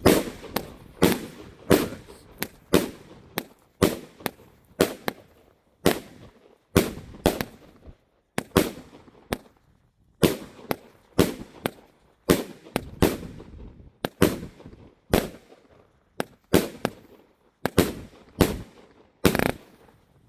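A 200-gram Thunder King consumer fireworks cake firing a long string of shots: sharp bangs, about one to two a second, some in quick pairs, with no letup. These are the cake's salute reports.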